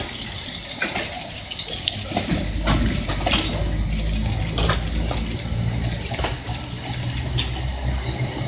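The Deha 101 electric railcar and Deki 3021 electric locomotive rolling slowly past on yard track: irregular metallic clicks and clanks from the wheels and running gear over a low, steady hum.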